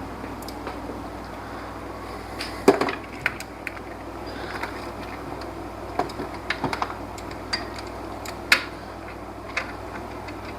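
Scattered sharp clicks and knocks of metal hand tools at work on the alternator mounting bolts, the loudest about three seconds in and again near the end, over a steady low hum.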